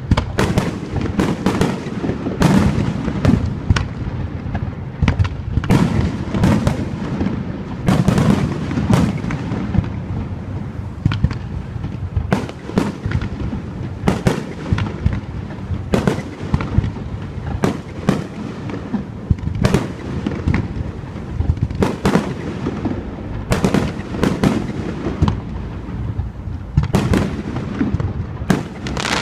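Aerial fireworks going off in quick succession: an irregular run of bangs and shell bursts, often several a second, over a continuous low rumble.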